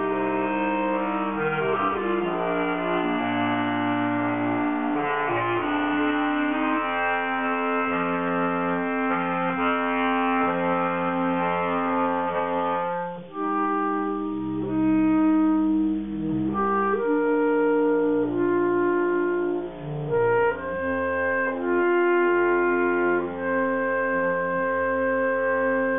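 Bass clarinet quartet playing held chords over a low bass line. About halfway through, the sound breaks off briefly, then comes back with longer sustained notes.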